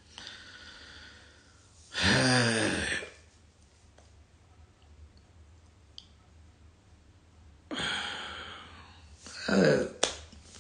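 A man's sighs and breaths. A soft out-breath comes first, then a loud, drawn-out sigh that falls in pitch about two seconds in. Near the end there is another breath, a shorter falling sigh and a click.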